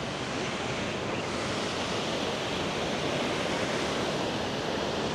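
Water spilling over a canal lock gate: a steady rushing noise that grows a little louder about a second in.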